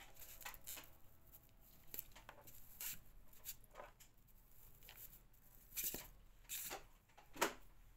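Faint, scattered rustles and soft taps of hands handling lace and a hot glue gun while pressing the lace onto a foam head form.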